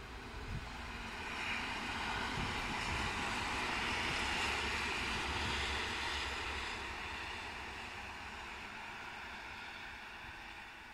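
Electric train passing by: a rushing noise of wheels on rails that swells to its loudest about four seconds in, then slowly fades away.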